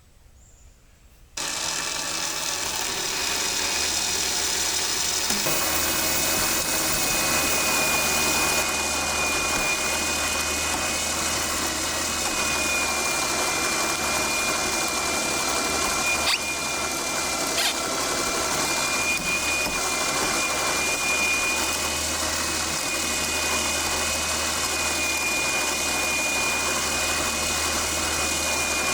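A machine or power tool running steadily, starting abruptly about a second in, with a constant high whine over a low hum.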